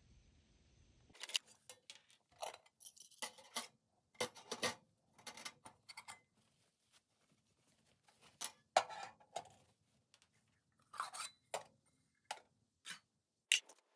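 Small metal camp gear being set down and shifted on a stainless steel wire grill rack inside a steel lunch box: a run of irregular clinks, clacks and light scrapes that starts about a second in.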